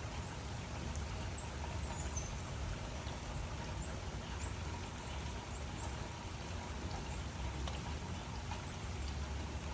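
Steady rain falling, with a low rumble underneath and faint short high chirps now and then.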